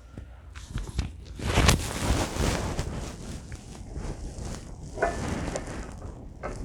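Hands handling and fitting metal parts and hardware during assembly: scattered knocks and clicks with rustling, and a louder noisy scrape about a second and a half in.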